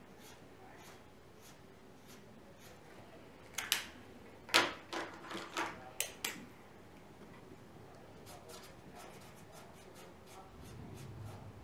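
Felt-tip pen scratching on a wooden spatula in short strokes, a quick cluster of them a few seconds in, some with a faint squeak.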